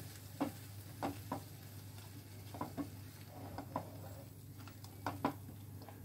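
Spatula stirring and scraping a thick masala paste around a non-stick frying pan, with short scrapes every second or so over a faint sizzle.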